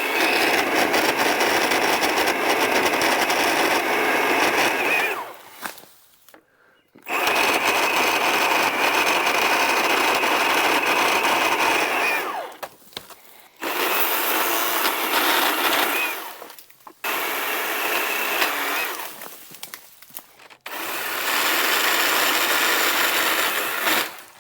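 Milwaukee M18 battery-powered pole saw cutting branches in five runs of two to five seconds each, its electric motor whining steadily under load, with short pauses between cuts.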